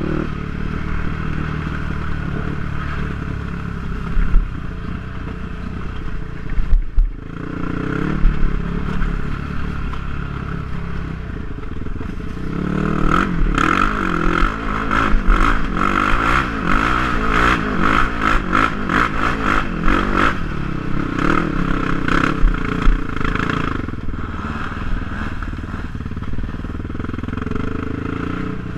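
Quad bike (ATV) engine running on a rough dirt trail, with rattling and knocks from the machine over bumpy ground, busiest and loudest through the middle stretch.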